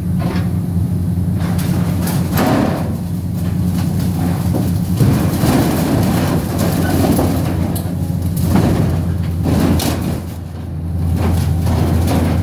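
Cat excavator's diesel engine running steadily, with repeated clanks and rattles of irrigation pipes as its grapple moves a bundle of pipe over the loaded trailer. The engine note grows louder near the end.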